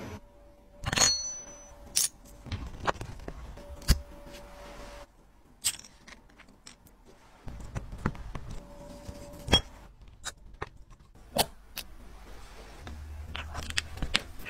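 Small metal watch-case parts clicking and tapping as they are handled and seated on a bench press: a string of sharp, irregular clicks, several of them loud.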